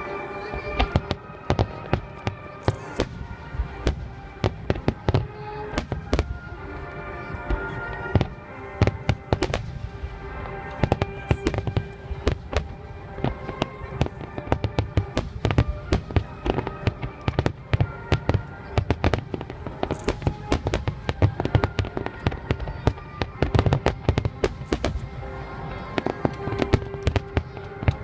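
Aerial fireworks display: a rapid, dense run of sharp bangs and crackling bursts, many a second, over music with sustained tones.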